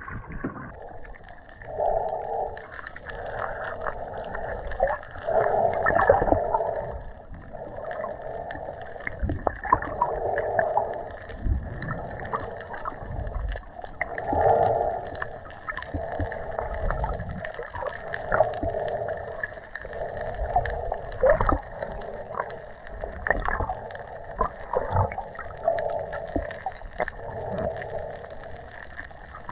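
Muffled water sound picked up by a camera held just under the surface while snorkelling over a reef. A swelling rush comes back about every two seconds, with scattered small knocks and crackles.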